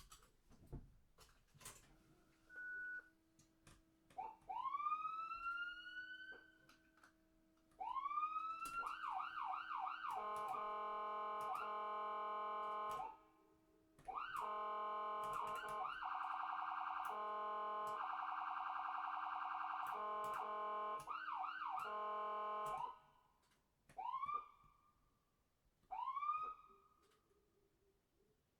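Ambulance siren sounding in separate bursts with gaps and clicks between them. It starts with two rising wails about four seconds in, then quick repeated upward sweeps, then a long steady blare of several tones with a fast warble in the middle, and short rising chirps near the end.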